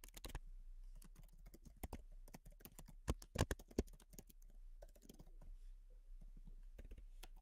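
Computer keyboard being typed on: faint, irregular keystrokes in short runs with brief pauses between them.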